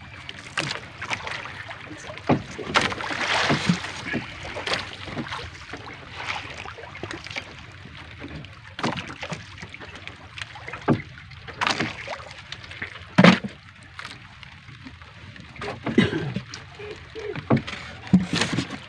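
Small outrigger fishing boat at sea: water lapping against the hull, with irregular knocks and clatter from handling inside the boat. The loudest knock comes about 13 seconds in.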